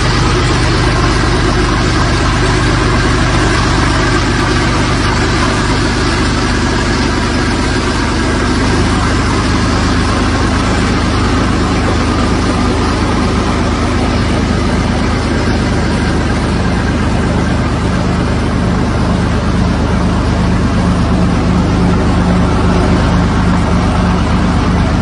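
Heavy military armoured truck's engine running loudly and steadily, with a constant rushing noise over it.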